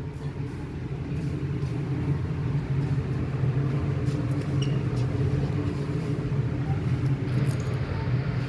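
A passenger ferry's onboard machinery running with a steady low drone, heard inside the passenger deck; it grows louder over the first couple of seconds and then holds.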